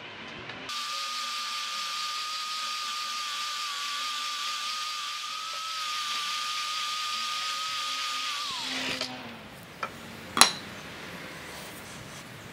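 Angle grinder cutting through the steel body of an old car shock absorber: a steady high whine with hiss for about eight seconds, then winding down as it is switched off. About ten seconds in comes a sharp metal clank, the cut shock absorber set down on a tile floor.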